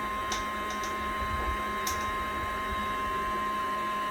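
Small electric liquid pump of a prototype liquid-cooling air conditioner running steadily: an even hum with a constant high whine, and a couple of faint clicks.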